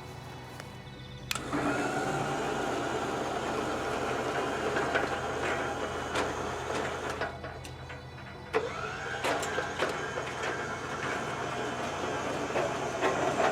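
An electric motor runs in two long stretches, its pitch rising as each one starts up, with clicks and rattles along the way. Background music plays underneath.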